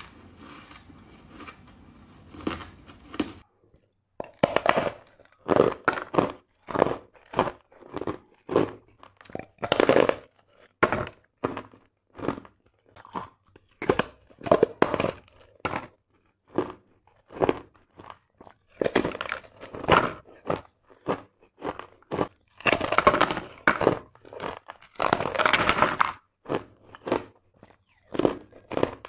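Close-miked crunching of ice being bitten and chewed: a long run of sharp crunches, a few a second, growing denser and longer for several seconds near the end.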